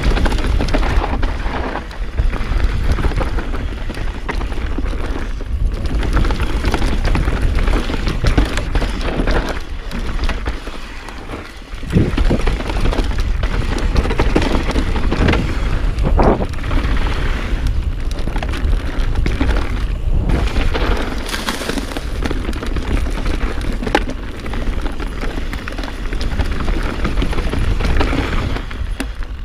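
Mountain bike descending a dirt singletrack at speed: steady wind rumble on the chest-mounted microphone over the rolling noise of the tyres on dirt, with sharp knocks from the bike over bumps about twelve and sixteen seconds in.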